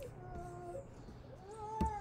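Faint whimpering: a few short held whines, one rising in pitch about a second and a half in, with a single sharp click near the end.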